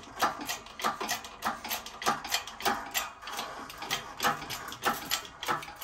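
Harbor Freight hydraulic shop press worked by hand while pressing a control arm bushing into its arm: a run of short mechanical clicks and creaks, about three or four a second.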